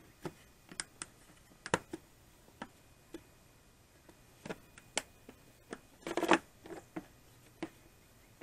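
Hands tapping and handling the plastic relay-and-fuse box cover and trim in a car's engine bay: scattered short clicks and taps, with a brief scraping rustle about six seconds in that is the loudest sound.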